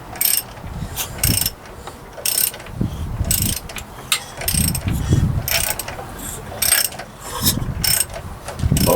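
Ratchet wrench clicking in short strokes about once a second as the CB400 engine's crankshaft is turned over clockwise by hand, with low rushing swells between the strokes.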